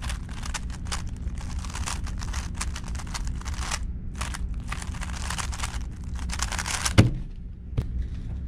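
GAN 12 Maglev magnetic speedcube being turned very fast: a dense run of plastic clicks and clacks from the layer turns. It ends in one sharp knock about seven seconds in, with a softer one shortly after.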